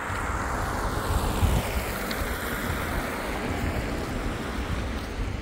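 Steady rushing noise with a gusty low rumble of wind on the microphone, swelling about a second in and then slowly easing.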